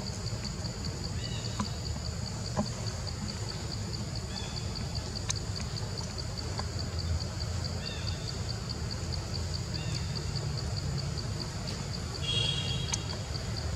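Outdoor forest ambience: an insect chirping in an even high pulse, about three a second, over a steady low rumble, with short high chirps every couple of seconds.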